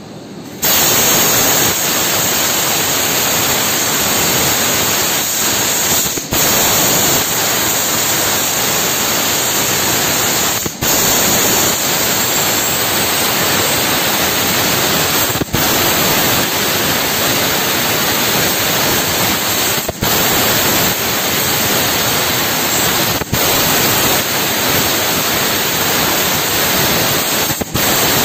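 1500 W fiber laser cutter cutting 5 mm stainless steel: a loud, steady hiss of the assist-gas jet blowing through the cutting nozzle, starting just under a second in. The hiss drops out briefly six times, every four to five seconds, at the breaks between cuts.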